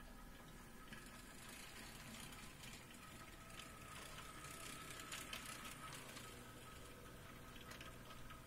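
HO scale model train, a 51 class diesel shunter pulling container wagons, running slowly: a faint steady motor whine, with light clicking and rattling of wheels on the track.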